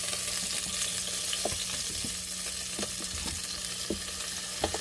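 Chicken thighs sizzling in a hot air-fryer basket as they are turned over with tongs, with a few sharp clicks of the tongs against the basket.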